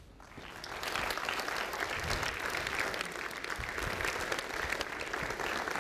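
An audience applauding, building up over the first second and then steady.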